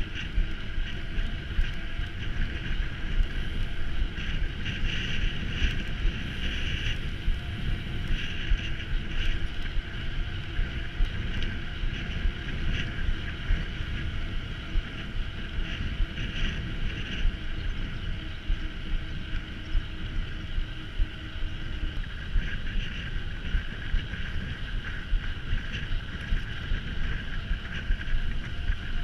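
Mountain bike being ridden, heard from an onboard camera: steady wind rush on the microphone and rolling rumble with frequent small jolts from the ground, under a steady high whir.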